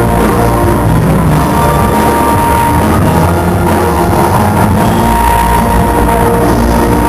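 Loud live gospel music from a band and choir, going on without a break.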